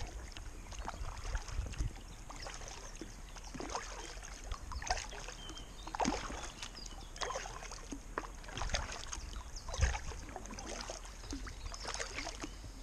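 Paddle strokes from an inflatable kayak: the double-bladed paddle dipping in, with water splashing and dripping off the blades about once a second in an uneven rhythm.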